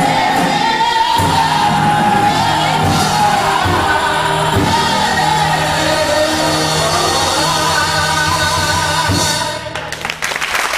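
A woman singing a long held closing phrase over a band with drums, a big final ending. About nine and a half seconds in, the music stops and applause breaks out.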